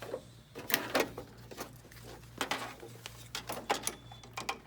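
Scattered clacks, knocks and short scrapes of plastic and metal parts as a hole punch unit is handled and slid into place in a copier finisher.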